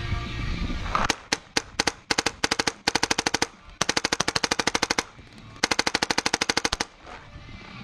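Paintball marker firing: a few single shots about a second in, then long rapid strings of shots at about fifteen a second, ending near the end.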